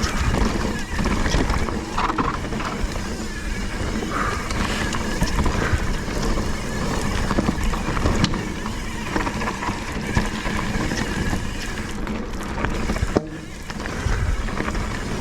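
Steady wind and riding noise rumbling on a mountain bike's helmet-camera microphone, with music faintly underneath.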